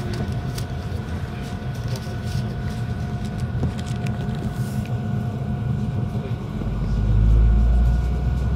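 PESA 620M diesel railcar under way: a steady low running rumble with a steady whine over it. The rumble deepens and grows louder about seven seconds in.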